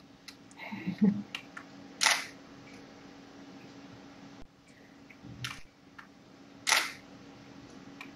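Camera shutter sounds as pictures are taken, the two loudest about two seconds in and near seven seconds, with a few smaller clicks over a steady low hum.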